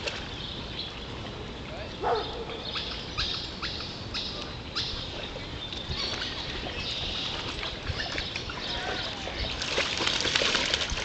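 A dog wading through shallow pond water, its legs splashing and sloshing as it steps, the splashing getting louder near the end.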